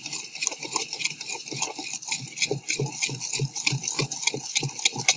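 Thick chocolate brownie batter of melted chocolate, eggs and sugar being stirred by hand with a spatula in a stainless steel bowl: wet strokes with scrapes against the bowl's sides, about three a second.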